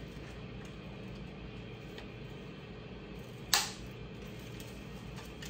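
A single sharp knock about three and a half seconds in, a utensil striking the slow cooker's crock while lasagna filling is spooned in, with a couple of faint ticks, over a steady low hum.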